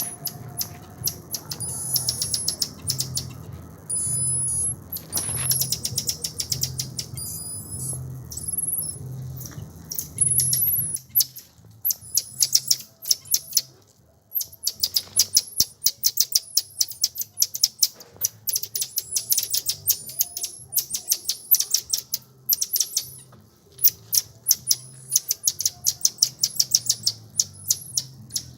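High-pitched bird chirping and twittering, rapid and almost continuous, with short whistled notes. A low, regular pulsing beat sits under the first part and stops about eleven seconds in.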